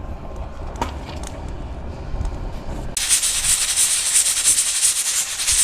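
Low wind rumble with a single knock, then about three seconds in a loud, even sizzling hiss starts suddenly as food goes into hot oil for stir-frying.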